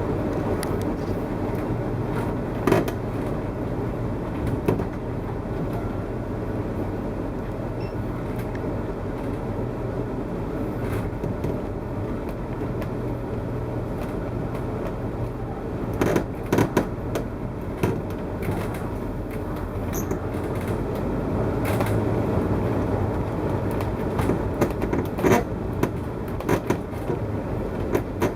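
2014 Winnebago Tour motorhome driving: a steady road and running rumble with loud creaks and cracks at irregular moments, a few in the first seconds, then in clusters about halfway through and near the end. The creaking is like misaligned parts rubbing together in the coach, sounding like the slide-out coming out.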